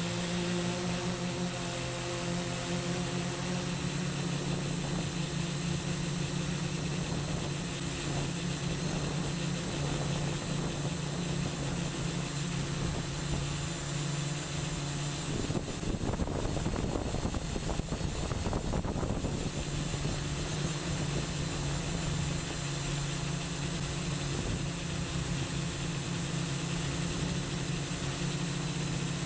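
A 3D-printed TX8 octocopter's eight 880 kV brushless motors spin 10x4.7 slow-fly props in flight, giving a steady multi-tone propeller hum with a thin, constant high whine above it. From about sixteen to twenty seconds in, a rougher rushing noise covers the hum before the steady tones return.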